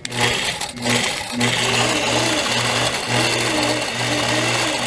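Longarm quilting machine stitching along a wave ruler: a steady motor hum whose pitch rises and falls in gentle arcs as the machine is moved through the curves, with a brief dip about a second in.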